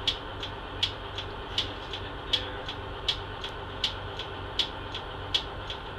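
Inside a GMC New Look bus: the diesel engine running low and steady, with a sharp tick repeating about every three-quarters of a second.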